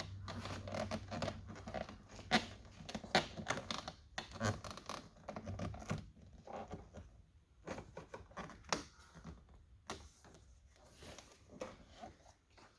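Irregular clicks, scrapes and rustling of hands fitting plastic door-trim parts back together, busier in the first half and sparser after about six seconds.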